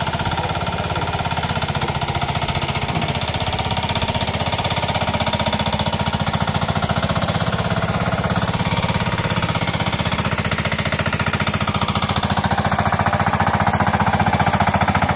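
Hand tractor's single-cylinder engine running steadily under load as it tills a flooded rice paddy, with a fast even chugging that grows a little louder near the end.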